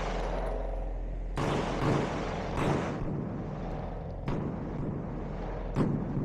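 9mm pistol firing single shots during a timed competition stage: five sharp reports, irregularly spaced about half a second to a second and a half apart.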